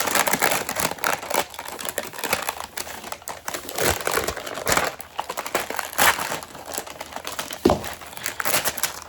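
Crinkly plastic wrapper being torn and pulled off a Mini Brands toy capsule, with continuous irregular crackling and rustling.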